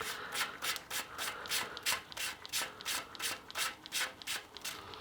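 Rhythmic rubbing strokes, about three a second, evenly paced throughout.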